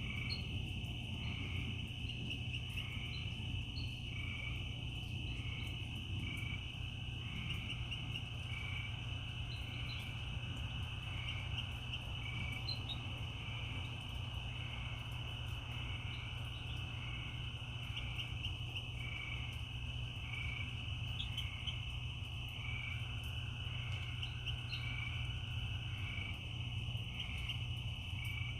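Night chorus of crickets: a steady high trill with a second chirping call repeating evenly about one and a half times a second, over a low steady rumble.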